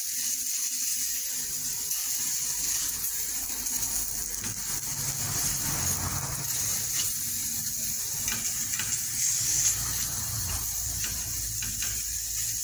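Cubes of paneer frying in hot oil in a nonstick pan: a steady sizzle, with a few light taps of the utensil turning them.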